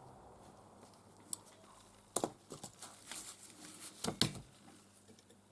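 Workbench handling noise: small clicks, ticks and rustles as tools and parts are picked up and moved, with a sharp knock about two seconds in and a louder clatter about four seconds in.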